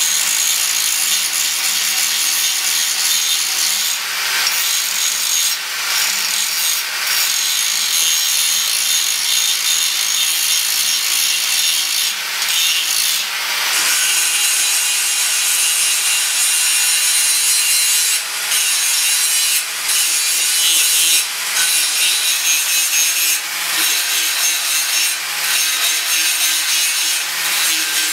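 Angle grinder grinding a damascus steel bar clamped in a vise: a loud, steady, hissing grind over the motor's hum, easing off briefly a few times.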